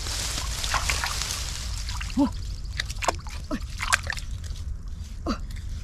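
Muddy water sloshing and splashing in short, irregular bursts.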